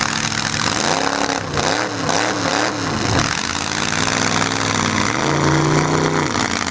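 Demolition-derby pickup truck engine revving hard, its pitch surging up and down several times in quick succession, then held at high revs twice near the end, over a steady rushing noise.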